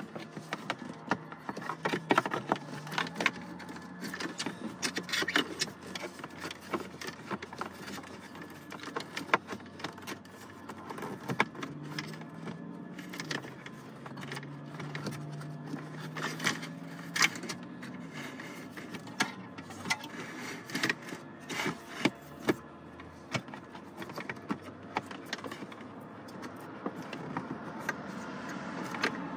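Wiring and small plastic connectors clicking, tapping and rattling against the plastic of an open dashboard cavity as a cable is fed down behind the dash. The clicks are irregular, over a faint low hum.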